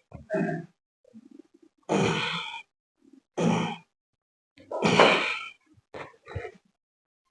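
A person's grunts and forceful breathy exhalations, about five in a row with short silences between them; the loudest comes around the middle.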